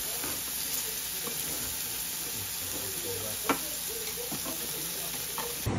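Beef steaks, pork and king oyster mushrooms sizzling on a tabletop griddle: a steady hiss, with a single sharp click about three and a half seconds in.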